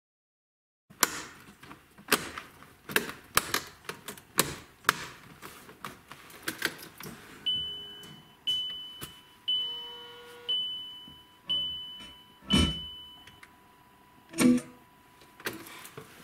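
Sharp plastic clicks and clacks of a car radio head unit being screwed and pushed into a VW dashboard, then six high electronic beeps about a second apart, each fading out, with a loud knock during the beeps and a few more clacks near the end.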